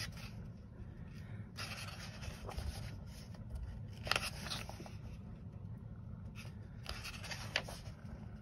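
Pages of a paperback coloring book turned by hand: three page flips, each a short rustle and slide of paper, over a low steady hum.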